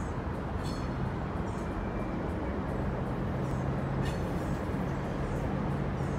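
Norfolk Southern EMD diesel-electric locomotives approaching slowly, their two-stroke diesel engines giving a steady low rumble with a held low tone that grows slightly louder.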